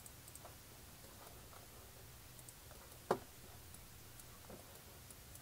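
Faint computer mouse clicks, with one sharper, louder click about three seconds in, over a low steady hum of room tone.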